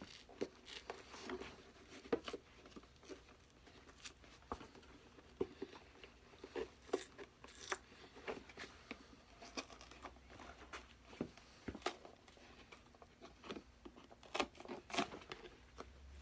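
A blade prying and scraping between a boot's fiberboard heel base and leather sole, faint, irregular little scrapes, clicks and tearing as the glue gives and the heel base comes away.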